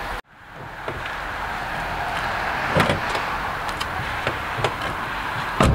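Mini Cooper S driver's door: a sharp clack about three seconds in as it is opened, then a louder thump near the end as it is shut, over a steady background hiss.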